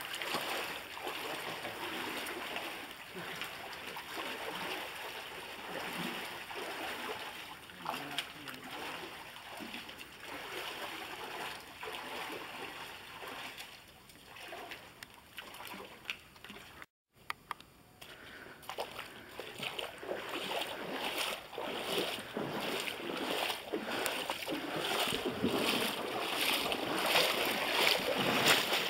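Several people wading through a shallow creek, feet splashing and sloshing in the water. After a brief dropout about two-thirds of the way through, the splashing steps become louder and fall into a regular walking rhythm.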